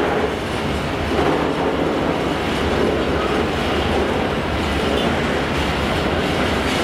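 Freight train of sliding-hood steel-coil wagons rolling past close by, the wheels running on the rails with a steady, even level of noise.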